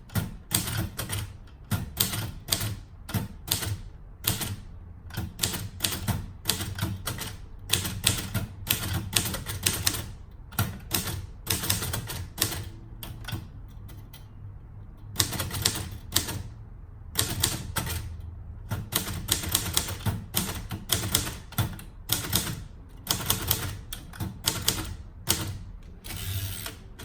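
Royal Quiet De Luxe manual portable typewriter being typed on: a run of sharp typebar strikes against the platen, a few keystrokes a second, with a brief pause of about a second and a half near the middle.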